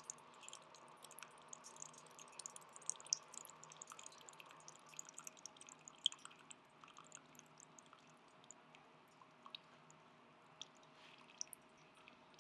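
Brewed coffee trickling from a Keurig K-Café's spout into a glass mug: a faint patter of small splashes, dense at first and thinning after about six seconds as the stream tapers to drips at the end of the brew. A faint steady hum runs underneath.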